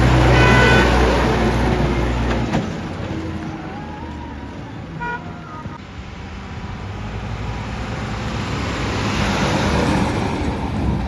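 Heavy diesel engine of earthmoving machinery running under load, dropping off about two and a half seconds in and building up again toward the end. A short tooting tone sounds near the start.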